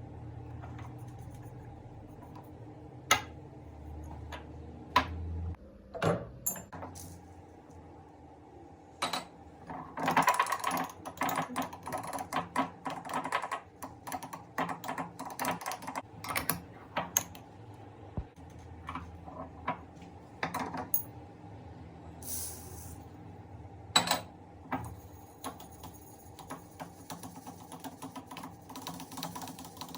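Jars and containers being handled while a cupboard is organised: scattered knocks and clicks as they are picked up and set down, with a dense run of rapid clattering about ten seconds in and a brief hiss a little past the middle.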